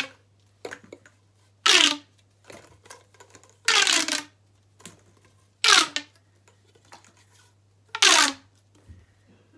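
Plastic pop tubes (corrugated fidget tubes) stretched out one after another, each pull giving a short, loud ribbed popping that falls in pitch; four pulls about two seconds apart.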